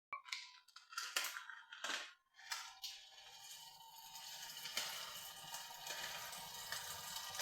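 Kitchen cooking sounds: a few sharp cracks and clatters in the first three seconds, then a steady hiss that slowly grows louder.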